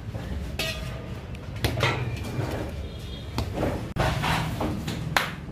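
Several sharp knocks and clinks of metal kitchen utensils, a few ringing briefly, over a steady low hum.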